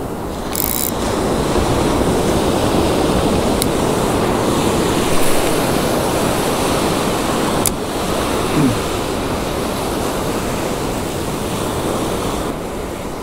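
Ocean surf breaking and washing over the sand around the wader, with wind buffeting the microphone. A couple of sharp clicks come through about four and eight seconds in.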